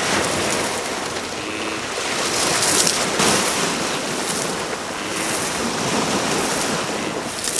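Sea waves washing onto a pebble beach, swelling louder about three seconds in.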